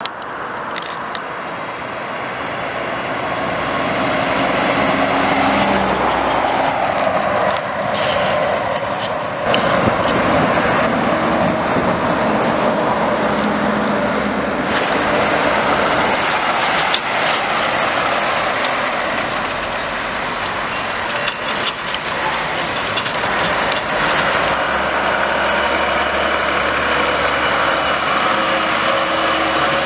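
Heavy articulated trucks driving past one after another, their diesel engines running under steady tyre and road noise.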